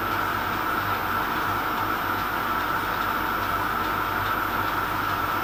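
Metal lathe running steadily, spinning a quarter-inch stainless steel piston rod while it is lapped with a hand-held aluminium lapping block charged with diamond paste.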